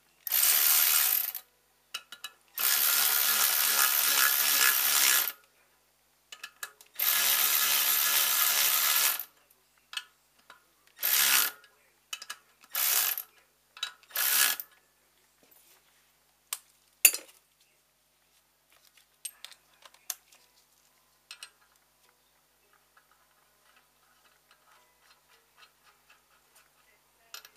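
A power tool in a workshop running in bursts: three long runs of one to three seconds in the first nine seconds, then three short ones, followed by scattered light metal clicks and taps.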